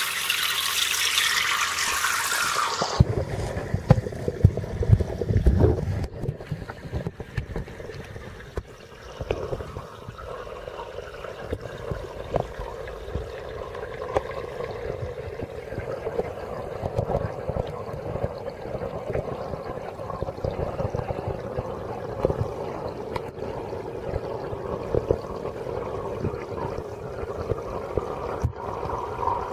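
Water running in an aquarium tank: a bright hissing rush for the first three seconds, then a lower, crackly trickle that carries on steadily.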